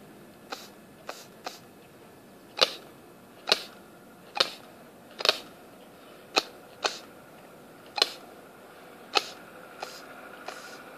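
Sharp gunfire pops from a 1/200-scale radio-controlled Bismarck model firing broadsides: about thirteen shots at irregular intervals of half a second to a second, some much louder than others.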